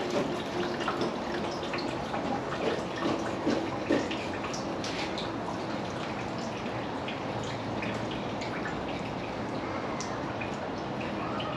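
Water from a garden hose running and dripping into a fish-cleaning sink: a steady trickling hiss with scattered small drips.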